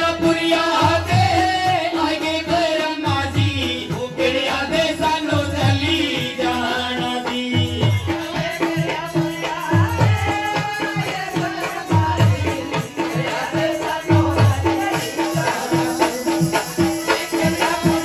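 Live Indian devotional folk song: a woman singing a wavering melody over a held accompanying note, with a low drum beat about once a second.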